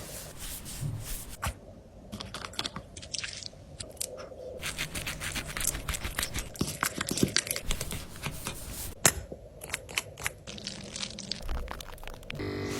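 Dog nail clipper cutting a dog's nails: a run of irregular, crisp clicks and snips with handling crackle. Just before the end a short pitched vocal sound from the dog begins.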